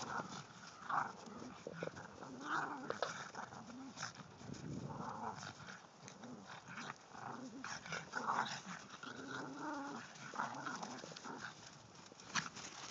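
Two Cavalier King Charles spaniels play-growling at each other as they wrestle, in short repeated growls that rise and fall, over scuffling in snow.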